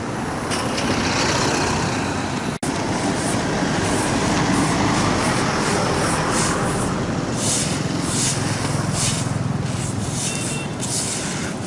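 Strong storm wind buffeting the microphone over heavy surf breaking on the beach, a steady loud rush with a low rumble and hissing gusts in the second half.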